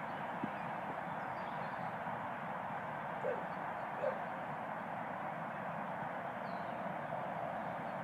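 Two short, distant dog barks, about three and four seconds in, over a steady outdoor hiss.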